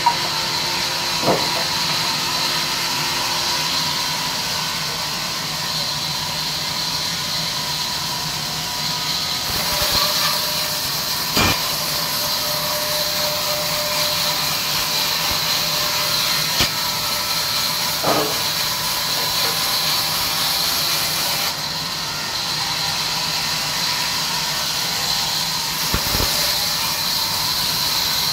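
Large sawmill band saw running and cutting through a log, a steady hiss with a high whine, with occasional knocks as the wood is pushed along the steel table.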